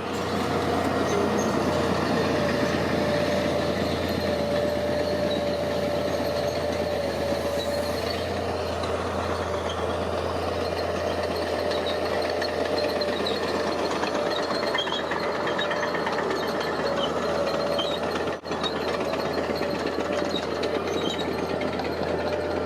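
Heavy diesel construction machinery running steadily, a low engine drone with a steady mid-pitched whine over it; the sound drops out for a moment near the end.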